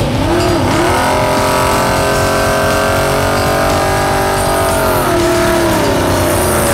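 Carbureted Mopar Magnum V8 revving up and held at steady high revs during a burnout on drag slicks. The revs drop about five seconds in and climb again near the end.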